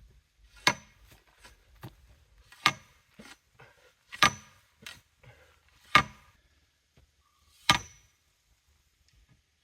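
Five heavy metal-on-metal blows, about one every second and a half, driving a steel sand-point well pipe into the ground. Each blow has a short ring, with fainter knocks between them. The pipe is stuck on something below, which the driver takes for a rock.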